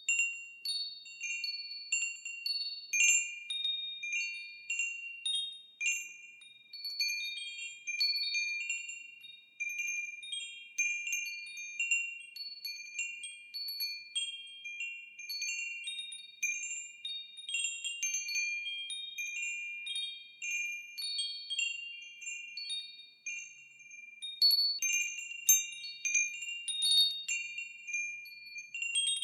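Wind chimes ringing: high, clear tones struck irregularly and over and over, each ringing on and overlapping the next, with a busier flurry of strikes near the end.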